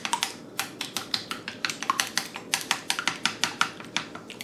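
Chopsticks beating eggs into a thin flour and cornstarch batter, clicking quickly against the side of a ceramic bowl, about five clicks a second.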